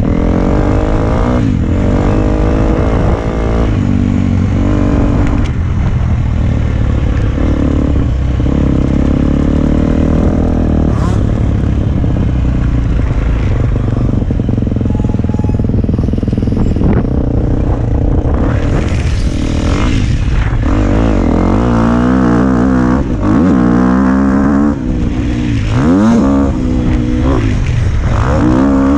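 KTM motocross bike engine being ridden hard, heard from a helmet-mounted camera. It repeatedly revs up and drops back through the gears, pitch rising and falling over and over, loudest and most frequent in the second half.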